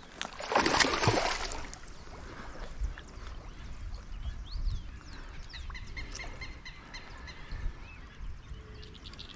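A hooked traíra thrashes and splashes at the water's surface about a second in. After that come fainter splashing and rustling, with birds chirping now and then in the background.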